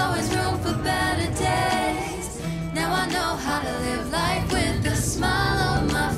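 Background pop song with a sung vocal line over steady bass notes.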